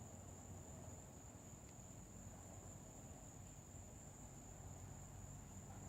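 Faint, steady, high-pitched trilling of crickets, with no break.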